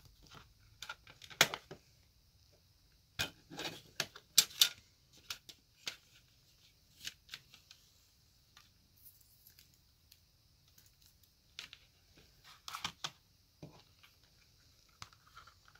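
Hands handling a plastic CD jewel case and its paper insert: scattered clicks and taps, the loudest about a second and a half in, twice around four and a half seconds, and again near thirteen seconds.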